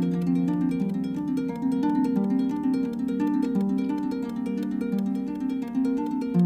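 Background music: a solo harp playing a quick, repeating pattern of plucked notes, with no singing.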